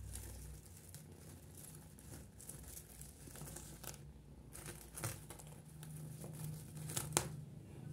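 Nylon fabric and mesh of a collapsible pet playpen rustling and crinkling as it is handled, with a few sharper clicks, the loudest about seven seconds in.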